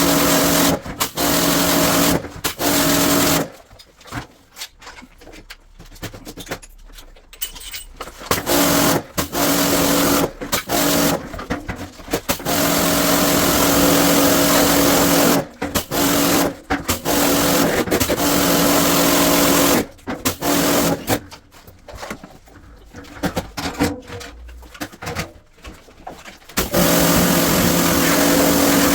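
A small electric motor running with a steady hum, switched on and off in repeated bursts that start and stop abruptly, with two longer quieter stretches between them.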